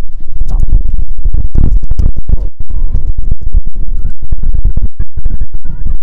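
Wind buffeting the microphone: a loud, constant low rumble with ragged crackling.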